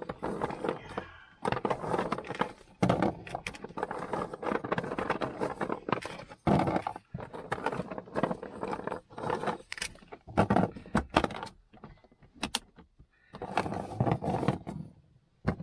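Hard bone-shaped dog biscuits clattering and scraping in a plastic storage box as a hand rummages through them and picks some out, in irregular bursts with sharp clicks.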